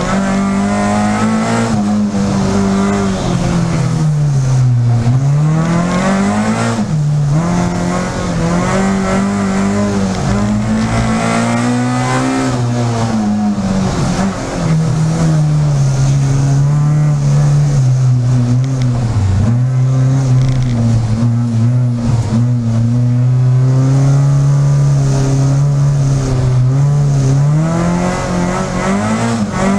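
Peugeot 306 Group A rally car's four-cylinder engine at racing speed, heard from inside the cabin. In the first half the revs climb and drop over and over through gear changes and braking. About halfway through they fall away sharply, then hold high and fairly steady for a long stretch before dropping and climbing again near the end.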